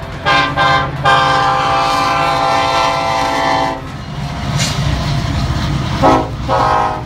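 Diesel freight locomotive's air horn sounding for a road crossing: two short blasts, one long blast of about three seconds, then two more short blasts near the end, over the low rumble of the passing train.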